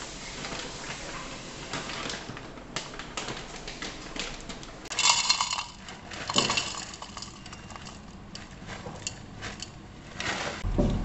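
Kellogg's crunchy granola poured from its bag into a glass bowl: dry clusters rattle and clink against the glass in two pours, about five and six and a half seconds in, with small clicks and packet rustles between.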